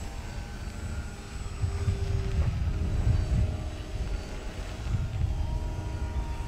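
Several radio-controlled foam combat planes' motors and propellers buzzing overhead as they circle one another: a mix of faint, steady whines at different pitches that come and go as the planes turn. Under them runs a gusty low rumble on the microphone.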